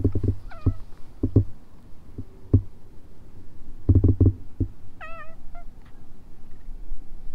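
Old cat giving short meows while it is being stroked: a falling one about half a second in and a wavering one about five seconds in, with several low thumps in between.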